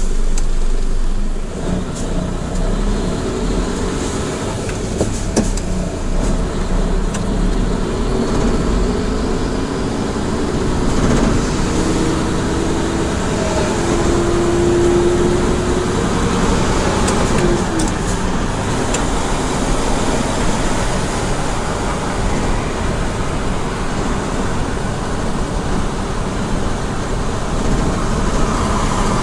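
Mitsubishi Fuso heavy truck's diesel engine and tyre noise heard from inside the cab while driving along at a steady pace, with a faint tone that rises slightly about halfway through.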